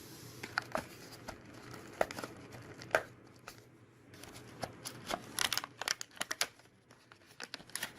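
Packaging crinkling and rustling as the unboxed doorbell accessories are handled, with scattered sharp crackles and clicks that come thickest about five to six and a half seconds in.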